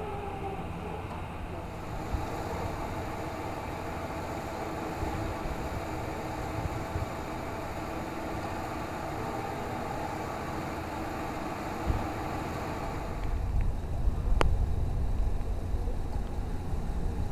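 Steady outdoor background of engine noise; about three-quarters through, a low rumble grows louder as a police SUV's engine idles close by, with one sharp click a second or so later.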